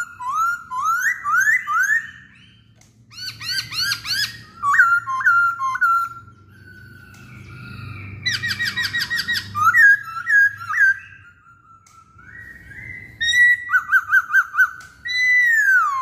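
Black-throated laughingthrush (poksay Hongkong) singing: loud, clear whistled phrases of rising slurred notes and rapid runs of repeated notes, in bursts with short pauses. The song ends on a long falling whistle.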